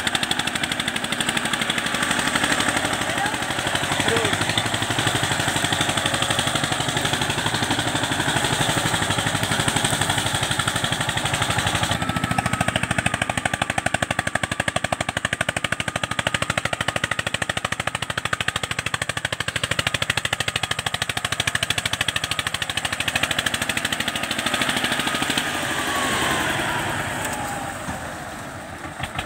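Diesel tractor engines chugging hard with a fast, even beat as they pull loaded sugarcane trolleys through deep mud. The sound changes abruptly about twelve seconds in, and near the end the engine eases off, falling in pitch and getting quieter.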